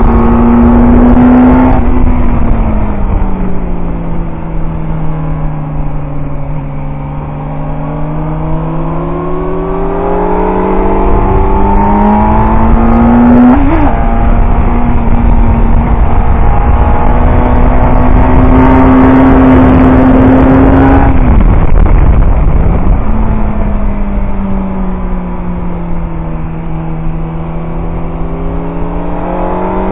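Suzuki GSX-R750 K4 inline-four engine heard from on board at track speed, with wind rushing over the microphone. The engine note falls away about two seconds in as the throttle closes for a corner, stays low, then climbs through the gears with a short blip about halfway and holds high before dropping sharply again for the next corner, climbing once more near the end.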